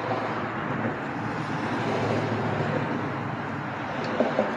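Road vehicle passing, a steady rushing noise of tyres and engine that swells and then fades, with a couple of light clicks near the end.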